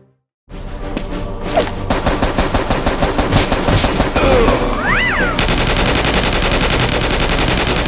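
Rapid automatic gunfire sound effects, a fast unbroken volley of shots. They start about half a second in after a brief silence and grow denser about five seconds in.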